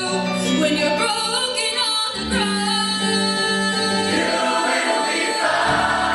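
High school show choir singing: a lead voice glides and bends between notes over sustained chords and a held low note, and the full ensemble swells in near the end.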